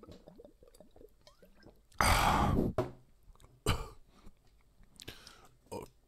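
Close-miked breath and mouth noises from a man at a microphone: a loud, rushing, breathy burst about two seconds in, then two shorter ones, with faint small mouth sounds before them.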